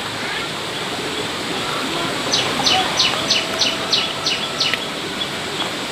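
A bird calling a quick run of about eight sharp, falling notes, roughly three a second, starting about two seconds in, over a steady background hiss.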